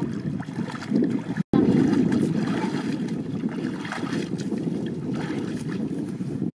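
Water splashing and sloshing as people wade through shallow marsh water, with wind buffeting the microphone. The sound drops out for an instant about a second and a half in, then returns louder.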